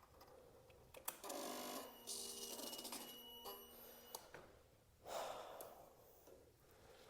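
2003 Kawasaki ZX6R 636's starter system buzzing and clicking rapidly on a couple of presses of the starter button, without the engine turning over: it doesn't sound healthy, a sign of a flat battery.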